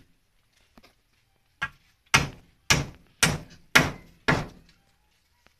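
Hammer blows on a wooden pole frame: a faint knock about a second in, then six sharp strikes in an even rhythm about half a second apart.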